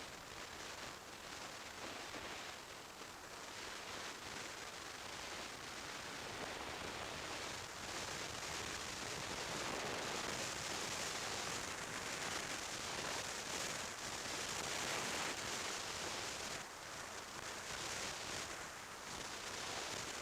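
Steady rushing wind noise over the microphone of a camera on a motorcycle riding at road speed, a hiss that swells in the middle and eases near the end.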